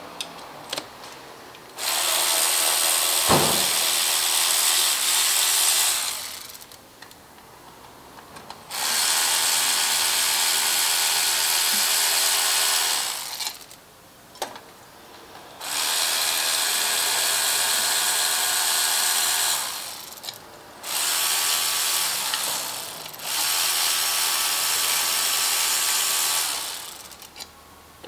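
A handheld power tool running in four runs of about four seconds each, the last one briefly broken off, spinning out the long 10 mm bolts that hold the plate on the front of a diesel high pressure fuel pump. Small clicks of metal on metal come in the pauses between runs.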